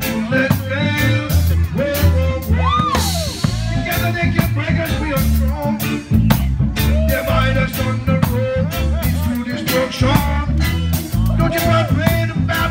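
Live reggae band playing: drum kit, bass, guitar and keyboards over a steady beat, with melodic lines gliding in pitch above.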